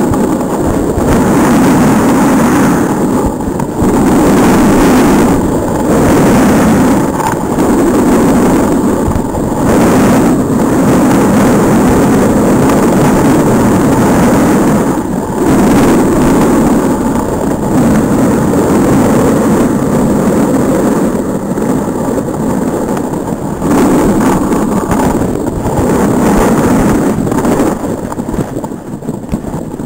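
Wind rushing over a helmet-mounted camera's microphone during a snowboard run, with the board scraping over the snow; a loud, steady rush that eases and surges every few seconds.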